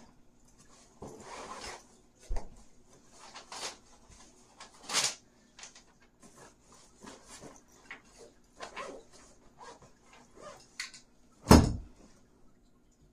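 Household tidying noises: scattered rustling, clicks and knocks of things being handled and set down, with a louder thump near the end. A faint steady hum from a running ceiling fan lies underneath.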